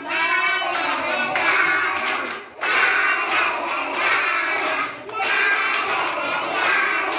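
A class of young children singing together in Kannada, clapping along, in three phrases broken by short pauses about two and a half and five seconds in.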